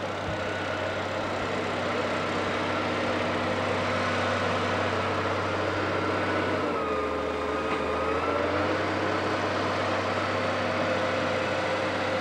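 An engine running steadily at idle. About seven seconds in its pitch sags briefly and then comes back up to the same steady speed.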